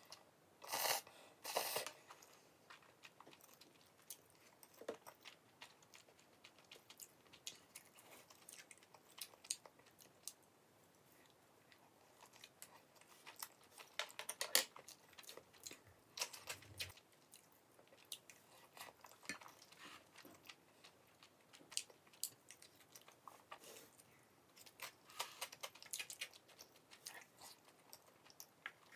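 A person chewing and biting food, with short crunchy bites and scattered small mouth clicks.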